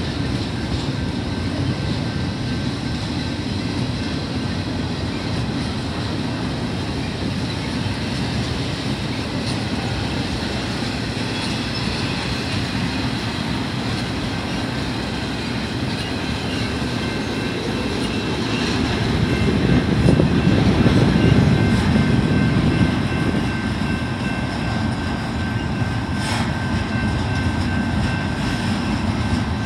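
BNSF double-stack container train rolling past close by: a steady rumble of steel wheels on rail with clickety-clack. It swells louder about twenty seconds in, with a faint steady high ring above it.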